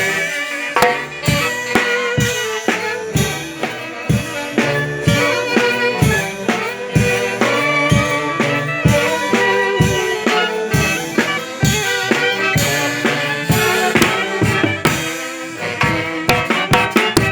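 Band music with drums keeping a steady beat under pitched instruments.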